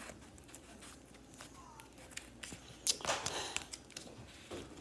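Light handling sounds: scattered faint clicks, then a sharp click about three seconds in followed by a brief rustle.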